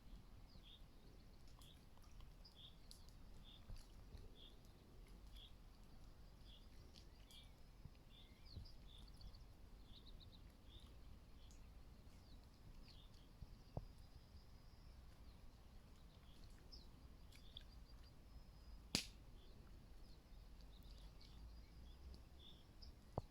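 Quiet outdoor ambience: a small bird faintly repeating a short high call over and over, regularly for about the first half and then more sparsely. There are a couple of sharp clicks, the loudest about 19 seconds in.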